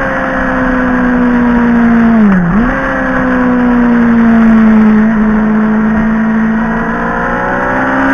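Motorcycle engine running under way: its note sags slowly, dips sharply and recovers about two and a half seconds in, then rises as it accelerates near the end.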